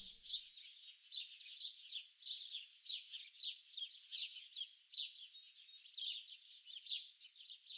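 Small songbirds singing together in a dense chorus of rapid, high-pitched chirps and short downward-sweeping notes.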